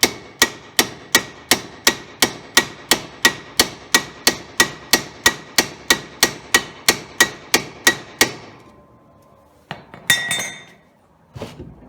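Steady hammer blows on steel, about three a second, knocking the steering knuckle down off the bottom of a Ford Focus front strut; the blows stop about eight seconds in, followed by a brief metallic clatter.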